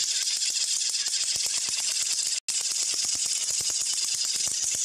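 Battery-powered toy train engines on plastic track running their motors flat out while pushing head-on against each other: a steady whir and hiss with a dense, rapid clicking rattle from the gearboxes and slipping wheels. The sound cuts out for an instant about halfway through.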